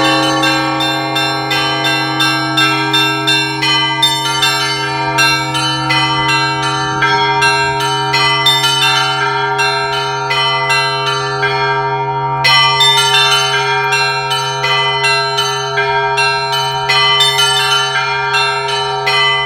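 Russian Orthodox church bells rung by hand: rapid strikes on the small high bells ring over the sustained hum of a large bell and the tones of the mid-sized bells. The small bells break off briefly about two-thirds of the way in, then carry on.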